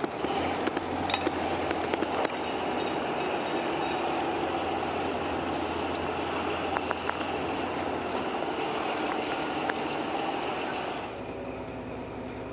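Railway locomotive running on the tracks: a steady rumble with several sharp knocks about one to two seconds in. Near the end it gives way to a quieter steady hum.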